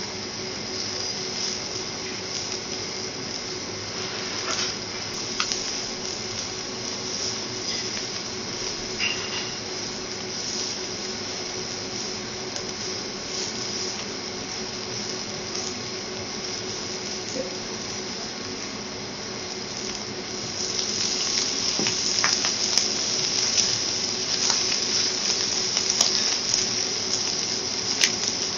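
Shrimp, scallop and salmon sizzling on a steel teppanyaki griddle, with the clicks and scrapes of a knife and fork working on the hot plate. About two-thirds of the way through the sizzle grows louder and the sharp taps and scrapes come more often.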